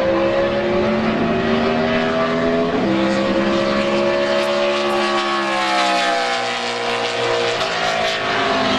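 NASCAR stock car V8 engines running at speed. The pitch climbs, drops sharply about three seconds in as a driver shifts up, climbs again, then falls away as a car passes by. A second car's engine can be heard underneath.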